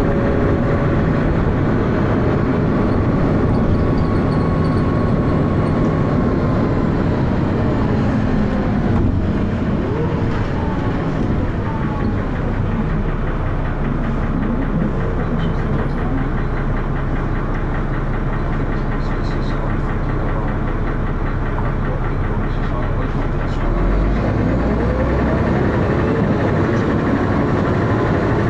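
Dennis Arrow double-decker bus heard from on board, its diesel engine running with heavy thrash. The pitch glides during the first third, settles to a steady idle about halfway through, and picks up again with a deeper, louder note near the end.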